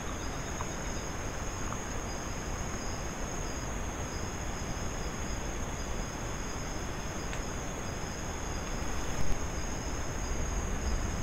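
Steady insect chorus, a continuous high trill at two close pitches, with a short louder noise about nine seconds in.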